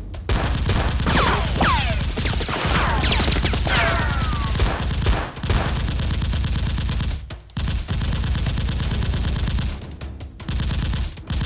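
Sustained bursts of rapid automatic gunfire sound effects, with several falling whines about one to four seconds in. The firing breaks off briefly twice, a little past halfway and again near the end.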